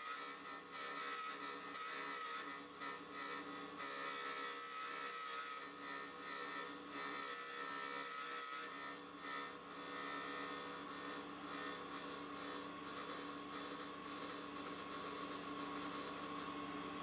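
Single-lip cutter grinder's spindle running with a high steady whine while an end mill is turned by hand against the grinding wheel. A rough grinding hiss swells and dips as the wheel grinds relief behind the end mill's cutting flutes. The high whine fades out near the end.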